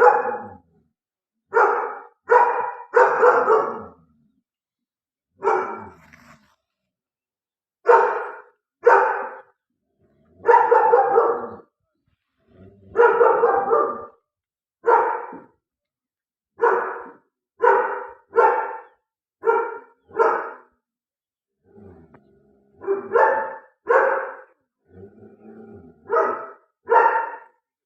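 A dog barking repeatedly, in runs of one or two barks a second with pauses of a few seconds between them.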